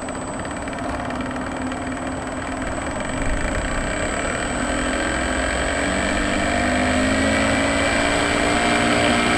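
Small brushless motor spinning a cut-down APC 8x4 propeller, whirring with a pitch that climbs slowly and grows louder as the throttle is raised with a servo tester, the motor running on solar-panel power. A thin steady high whine sounds alongside.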